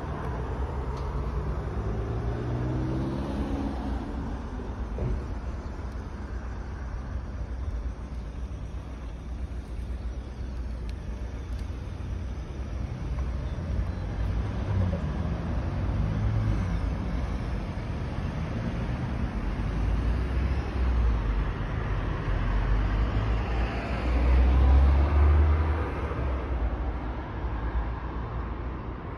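Road traffic: motor vehicles passing by with a steady low rumble. An engine's pitch falls near the start, and the loudest pass comes a few seconds before the end.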